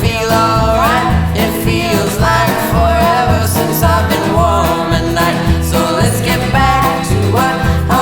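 Background music: an upbeat country song with guitar, a steady bass beat and a singing voice.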